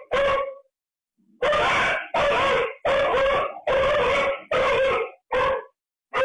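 An animal calling over and over in loud, evenly spaced calls, each about half a second long, coming about three every two seconds after a short pause near the start.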